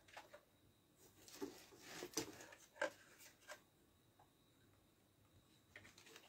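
Faint rustling and a few short, light clicks from a plastic model vehicle and its cardboard packaging being handled, mostly in the first half.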